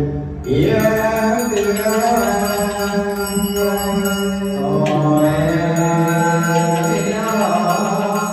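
A man chanting a Buddhist liturgy into a handheld microphone in slow, long-held notes, the pitch shifting every few seconds.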